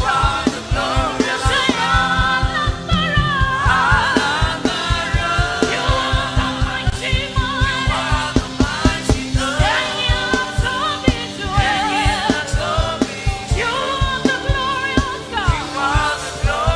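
Gospel worship music: singing over a band with a fast, steady drum beat.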